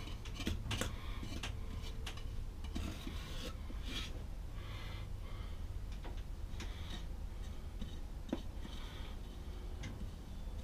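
A razor scraping and shaving the rough edges of a plaster of Paris mold, in short irregular strokes with a few light clicks.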